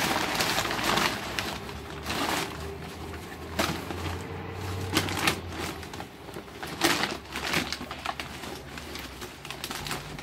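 Heavy kraft-paper yard-waste bag crinkling and rustling in irregular bursts as a gloved hand digs through its contents.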